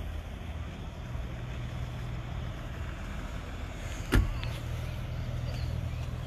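Steady low rumble of an outdoor lot, with one sharp knock about four seconds in.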